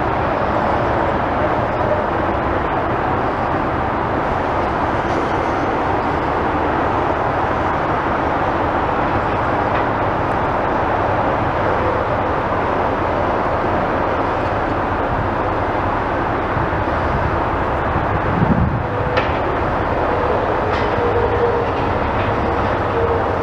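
Steady, loud rumbling noise with no clear rhythm, with a brief low thump about eighteen seconds in and a faint steady hum near the end.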